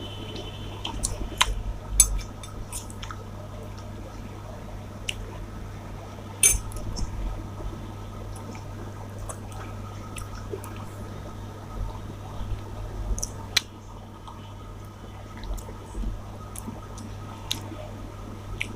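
Wet eating sounds: squelching and chewing of rice with chicken masala, with scattered sharp clicks, over a steady low hum.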